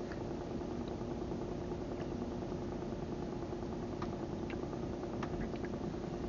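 Small boat engine running steadily with a low, even hum. A few light ticks sound in the middle as hooks are handled on the longline rack.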